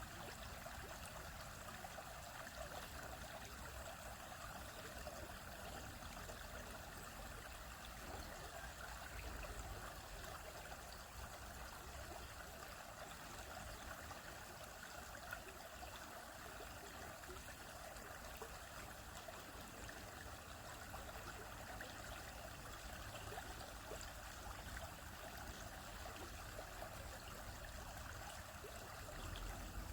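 Shallow stream flowing over rocks, a steady babbling and trickling of water.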